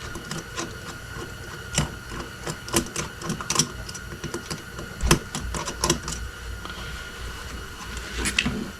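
Irregular small clicks and knocks of hand tools and small metal parts being handled while an ATV carburetor is worked on at the bench, a little louder about five to six seconds in.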